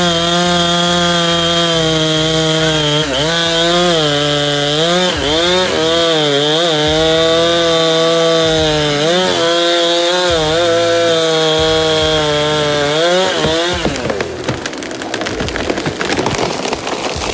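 Two-stroke chainsaw running at high revs while cutting into wood, its pitch dipping again and again as the chain bogs down under load. About fourteen seconds in the engine tone stops and a harsh crackling, rustling noise takes over.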